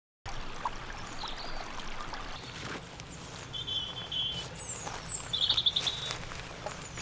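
Small songbirds calling in winter woodland: scattered high chirps, a short trill about halfway through and a quick rapid-fire call a little later, over a steady low background hush. The sound cuts in suddenly from silence at the very start.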